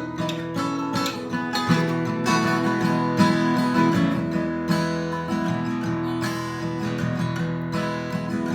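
Acoustic guitar played solo in a folk fingerpicking and strumming pattern, an instrumental passage with no singing.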